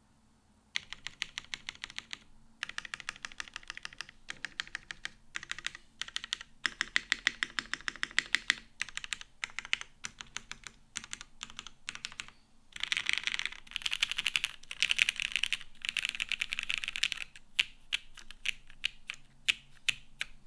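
Typing on a custom mechanical keyboard with lubed retooled Cherry MX Black linear switches in a top-mounted aluminum plate and GMK keycaps: a fast run of keystroke clicks. The typing starts about a second in, and between about 13 and 17 seconds it turns into dense, almost continuous runs of clicks.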